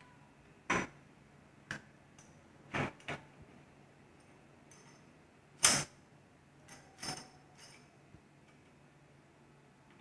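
Hand-operated ratchet pipe threader being worked on a metal conduit held in a pipe vise: a handful of separate metallic clicks and clanks from the ratchet handle and die at irregular intervals, the loudest a little past halfway, with quiet gaps between.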